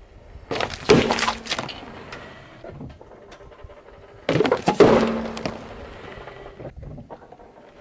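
Car tyre rolling over full juice cartons on asphalt: two cartons burst under the wheel, about four seconds apart, each a sudden loud burst that trails off over about a second.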